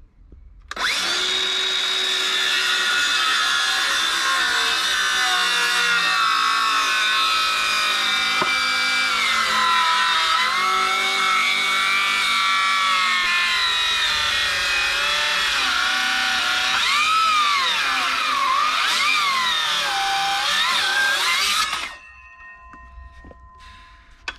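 Circular saw cutting through a 4-inch timber fence post at its widest bevel. Its motor whine dips and recovers in pitch as the blade labours in the wood, then stops suddenly after about twenty seconds.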